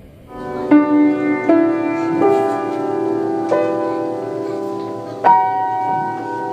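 Slow piano music: single notes and chords struck about once a second or less and left ringing, starting about half a second in.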